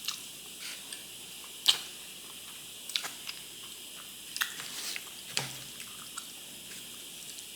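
Close-miked wet mouth sounds of chewing black bean noodles in sauce: a string of sparse, sharp, wet smacks and clicks about a second apart, the loudest one about two seconds in.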